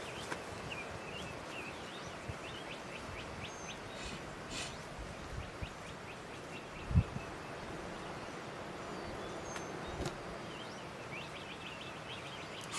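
Small songbirds chirping and singing in a steady chorus of short, quick high notes, with a single low thump about seven seconds in.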